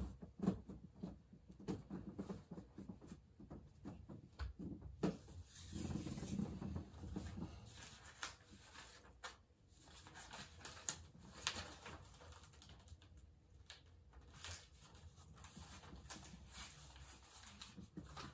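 Faint rustling of bedding and paper with scattered soft knocks and clicks as a person shifts about on a bed and handles a notebook.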